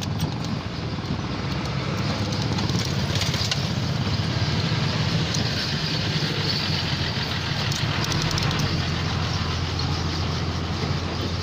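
An engine running steadily, a constant low drone with no change in speed, with a few faint light clicks over it.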